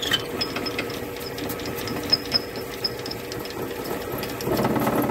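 Wood lathe running while an 11/32-inch twist drill bit in a tailstock drill chuck bores a deep hole into the end of the spinning wood blank. Steady running and cutting with scattered ticks, growing louder near the end.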